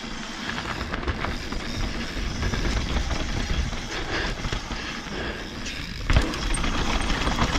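Mountain bike rolling fast down a dirt trail: steady tyre noise on packed dirt with a low rumble of wind across the camera microphone, and one sharp thump about six seconds in.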